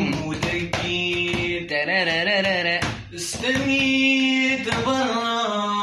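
A man singing a love song in Arabic, with ornamented, wavering held notes, pausing briefly about halfway between two phrases.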